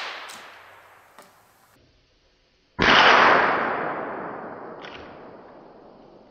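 Hunting gunshots: the echo of a shot fired just before dies away, then a second sharp shot about three seconds in rolls off in a long echo lasting some three seconds. Faint clicks come in between.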